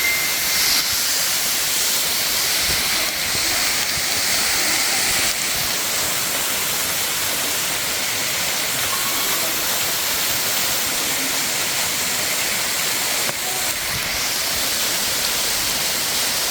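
Wibong Falls pouring: a steady rushing of falling water.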